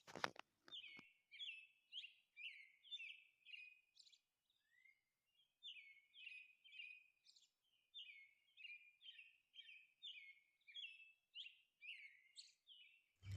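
Faint bird chirps, short falling notes repeated about twice a second with a short break near the middle, over near silence.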